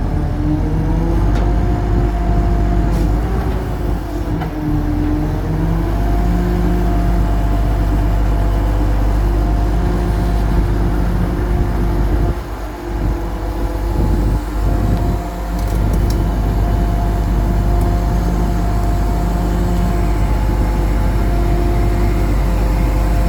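Heavy diesel engine of construction machinery running hard, its pitch shifting a little as it works. The level drops briefly about halfway through, then picks up again.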